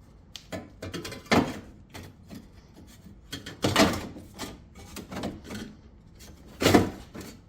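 A run of knocks and clunks from sheet metal being handled on the van's rear door, with lighter clicks between. Strong knocks come about a second and a half in and near the middle, and the loudest near the end.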